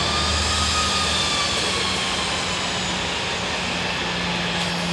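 Jet airliner engine noise: a steady rush with a high turbine whine that slowly falls in pitch.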